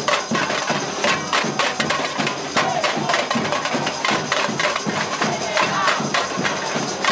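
A Brazilian university bateria, a samba-style drum and percussion band, playing a fast, dense rhythm of drum and percussion strikes, with crowd voices shouting along.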